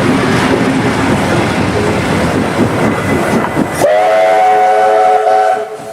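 Steam locomotive 3642 running with a loud, rushing noise. About four seconds in, its steam whistle sounds a steady chord of several tones for under two seconds.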